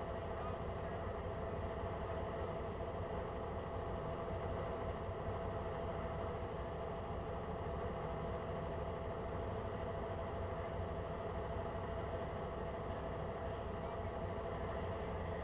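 Chevrolet Blazer's engine idling steadily.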